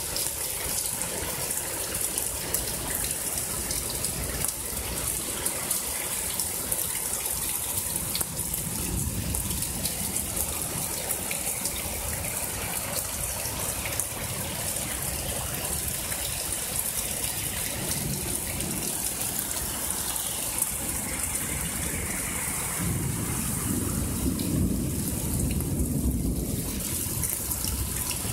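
Heavy rain pouring down in a storm: a steady hiss of falling drops with water gushing. A deeper rumble swells about nine seconds in and again for several seconds near the end.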